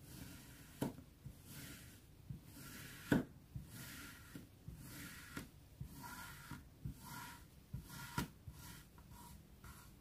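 A knife slicing through a moulded slab of kinetic sand, about one cut a second. Each stroke is a short, crunchy, grainy hiss, several of them ending in a sharp tap. The firmest tap comes about three seconds in.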